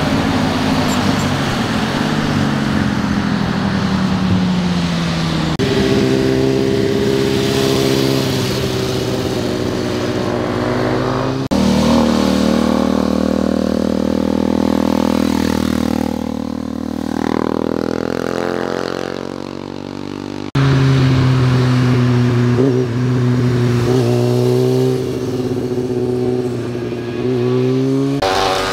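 Motorcycle engines revving and passing at speed through bends, in about four separate passes cut one after another, the pitch gliding up and down with each pass.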